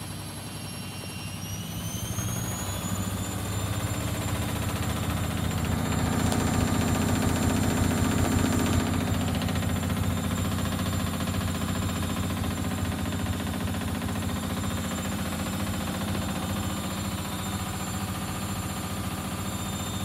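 Bendix BIW 103W washing machine on a spin-only cycle with an unbalanced load. Its motor whine rises as the drum speeds up over the first few seconds, then the drum spins with heavy shaking, loudest about seven seconds in.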